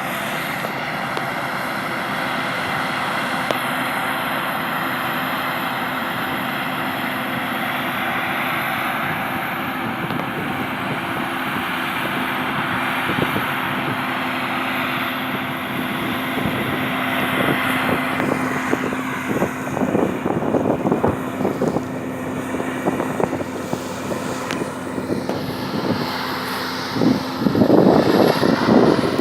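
Combine harvester running steadily: a constant engine drone with a steady hum. In the last third, irregular crackling knocks and louder surges join it.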